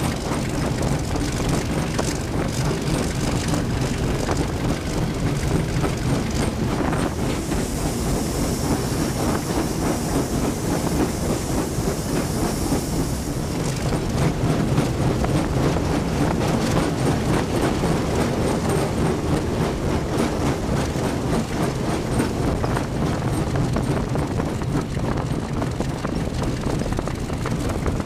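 Diesel locomotive DT12002 running under way, heard from its cab side: a steady engine drone with wheel and rail noise. A high hiss joins for about six seconds near the middle.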